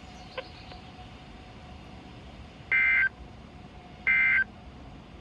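NOAA Weather Radio EAS end-of-message signal: two short bursts of SAME digital data tones, about a second apart, near the three- and four-second marks, over faint radio hiss. The bursts close out the test of the warning alarm.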